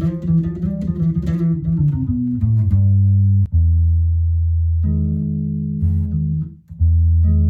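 Electric bass guitar with flatwound strings played through an amp: a quick run of notes, then long held low notes, the last one stopping briefly before another starts. Its tone is warm, which the player puts down to the flatwounds.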